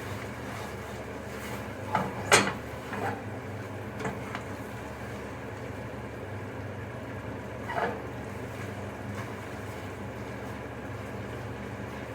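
A few knocks and clatters of cookware over a steady low hum, the loudest about two seconds in and a softer one near eight seconds.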